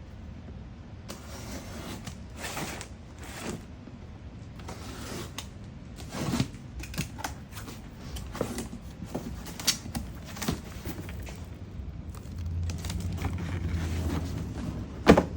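A cardboard box being unpacked: irregular rustling, creaking and light knocks as packaging and items are handled, with one sharp knock near the end.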